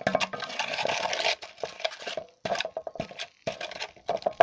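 Steel pincers scraping and grinding burnt filter ash against the inside of a metal bucket: a dense gritty scrape for about the first second and a half, then shorter scrapes and clinks. The charred filter residue is being crushed to fine dust so the acid can reach every particle.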